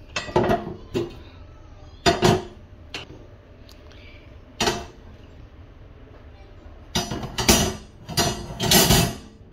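Metal gas-stove burner grates being lifted off the stovetop and set down on a stone countertop, clanking and scraping: a few single knocks, then a busier clatter near the end as they are stacked.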